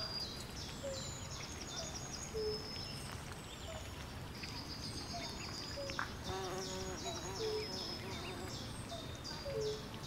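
Swamp ambience of birds and insects: repeated high-pitched chirping trills over a steady low background noise, with short low calls about once a second and a brief flurry of lower calls a little after the middle.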